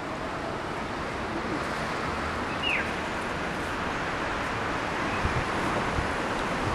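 Steady outdoor background hiss, slowly growing a little louder, with one short falling bird chirp about two and a half seconds in.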